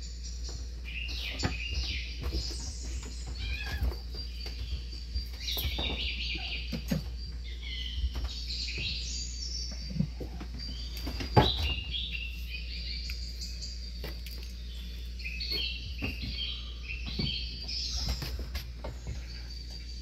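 Small birds chirping and twittering busily and continuously, over a steady low hum, with a few short knocks and thumps scattered through, the loudest a little past halfway.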